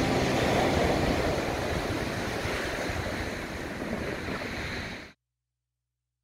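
Sea waves washing and breaking on a sand and shingle beach, with some wind on the microphone. The sound cuts off abruptly about five seconds in.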